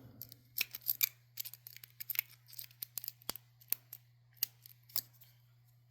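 A hook pick clicking and scraping against the pin tumblers inside a laminated padlock held under a tension wrench. It makes a string of small, irregular metallic clicks as the pins are worked.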